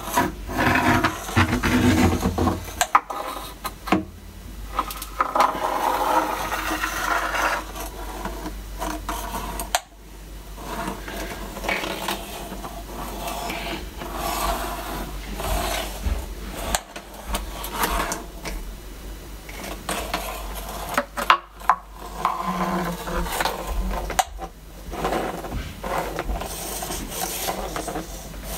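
Handheld electronic gas leak detector ticking from its speaker while its gooseneck probe is swept along skirting board and floorboards, with rubbing and handling noise from the probe and case.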